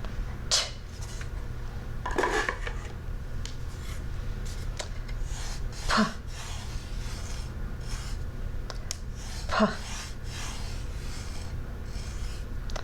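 Small objects and letter cards being handled and set down on a table, with a few light knocks about every three seconds and soft rubbing and scraping between them, over a steady low hum.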